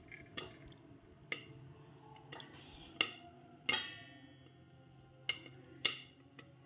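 Popcorn kernels popping sporadically in a hot kadhai under a steel lid: about seven sharp single pops at irregular intervals, one ringing briefly off the lid. This is the sparse last popping of a batch that is nearly done.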